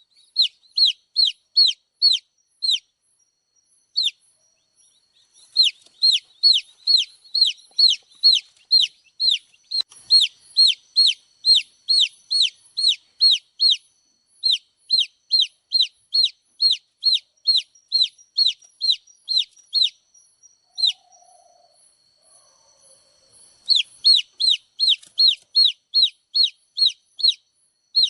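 Baby chick peeping: a steady series of loud, high, downward-sliding peeps at about three a second, in bouts with short pauses and a break of a few seconds about three-quarters of the way through.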